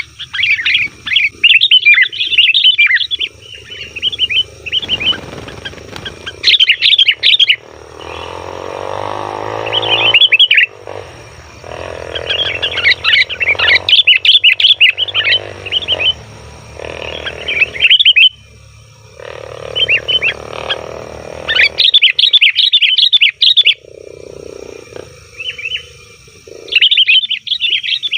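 Sooty-headed bulbuls (kutilang) calling noisily in repeated bursts of rapid, chattering chirps, with short pauses between bursts and softer, lower sounds in some of the gaps. This is the excited chatter used as a lure call to draw in other bulbuls.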